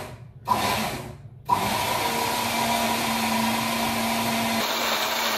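Personal blender blending pancake batter of banana, oats and egg. It gives two short pulses, then runs steadily from about a second and a half in, with a constant whine.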